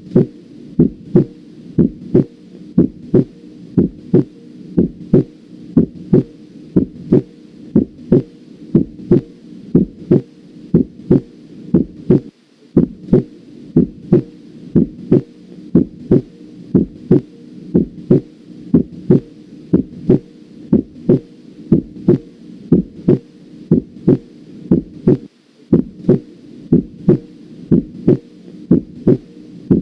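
Human heart sounds through a stethoscope's diaphragm, played to demonstrate the second heart sound (S2), which is loudest over the aortic and pulmonary areas: a steady, even rhythm of lub-dub beats over a low hum.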